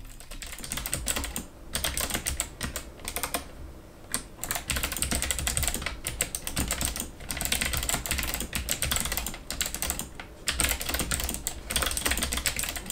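Typing on the MSI GK50 TKL's flat, low-profile clicky mechanical switches: a fast, dense stream of sharp clicks in runs, broken by short pauses every two to three seconds.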